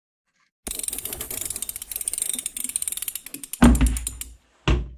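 Fast mechanical ratcheting clicks lasting about three seconds, then a heavy low thud and a second thud about a second later.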